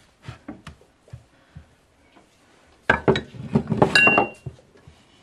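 Rolling pin working biscuit dough on a wooden board with faint soft knocks, then about three seconds in a loud clatter of kitchenware with a short ringing clink.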